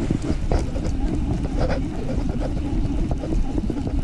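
Wind rumbling on the camera microphone, with scattered light clicks and ticks from handling a baitcasting rod and reel during the retrieve.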